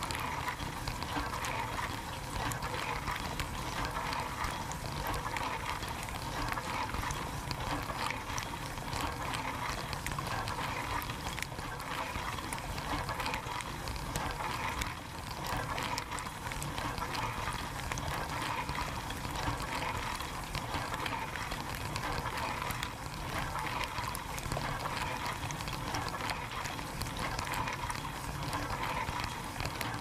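Dishwasher wash cycle heard from inside the tub: water spraying and splashing steadily against the dishes and walls.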